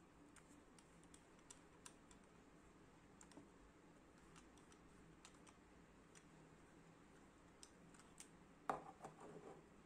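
Faint, scattered clicks and taps of hard ABS plastic phone-stand parts being handled and fitted together, with a louder cluster of clicks near the end.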